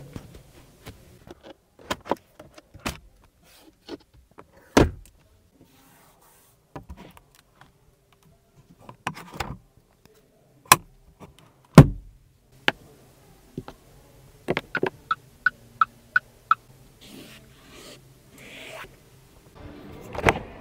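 Separate clicks and knocks from a Geely Galaxy E8's interior and door fittings being worked by hand: a sun-visor vanity mirror cover, buttons, a flush door handle. The sharpest knock comes about twelve seconds in, and a quick run of short, evenly spaced ticks follows a few seconds later.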